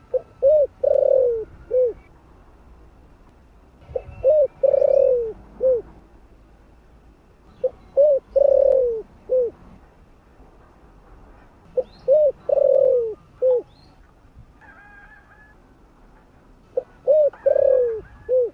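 Spotted dove cooing: five loud phrases about every four seconds, each two short coos, a long falling coo and a short closing coo.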